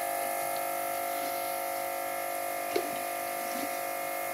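Steady electrical buzzing hum, with a faint click about three seconds in.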